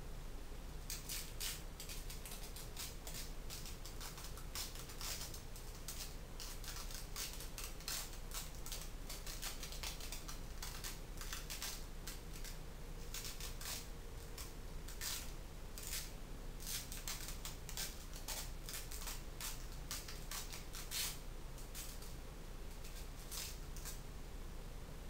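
Strapping tape peeling off its roll in irregular crackling pulls, a few each second, as it is wound in a spiral around a wooden dowel.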